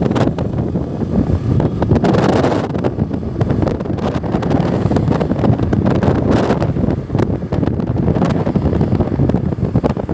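Wind buffeting the microphone: a loud, low rumbling noise that swells and drops in gusts.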